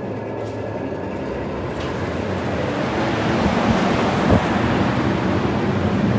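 Industrial dehumidifier's fan running, a steady rush of air that grows louder over the first few seconds, with a single knock about four seconds in.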